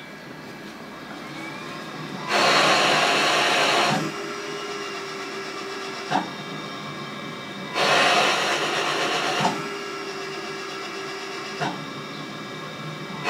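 Cough assist machine cycling through breaths to clear a child's phlegm: two loud rushes of air about 1.5 s each, with a quieter steady hum and short clicks between them as it switches phase.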